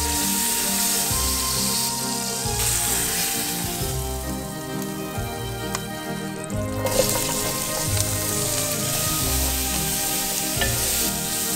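Tri-tip beef searing in oil in a hot cast iron skillet, a steady sizzle. The sizzle thins out for a couple of seconds past the middle, then a fresh sizzle starts as chopped carrots, onion and celery go into the pan and are stirred.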